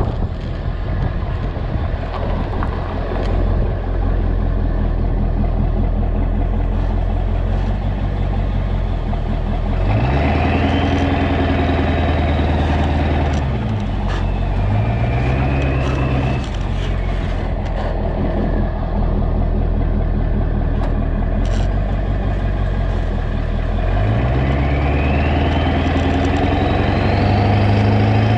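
1996 Ford F350's 7.3 L Powerstroke diesel with a 3-inch straight pipe, driving on a gravel road. The engine note climbs sharply about ten seconds in, drops and climbs again, and pulls up once more near the end, each time with a whistle rising along with it.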